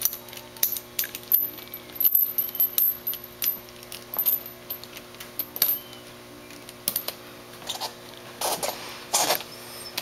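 Steel tire-chain links clinking and rattling in quick, irregular clicks as the chain is pulled tight and the latch hooked onto the next link, with a couple of louder scrapes near the end.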